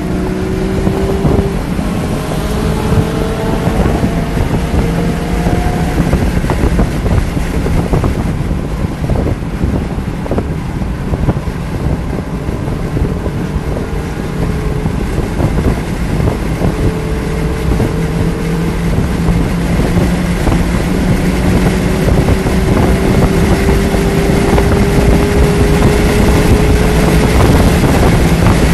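Stock 2019 Mazda MX-5 Miata's 2.0-litre four-cylinder engine driven hard on a race track, heard over heavy wind and road noise. Its pitch climbs slowly in several long pulls, the longest and loudest near the end.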